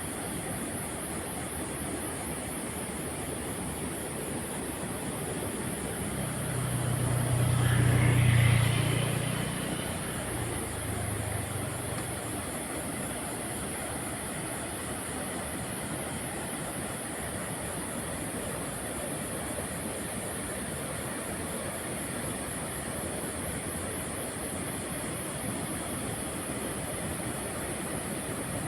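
Steady rushing noise with a high hiss, and a motor vehicle passing by, loudest about eight seconds in.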